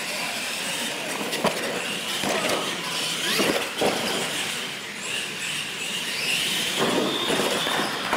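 Radio-controlled monster trucks racing on a concrete floor: their motors and gears whine high, rising and falling with the throttle, over tyre noise, with a couple of sharp knocks from the trucks.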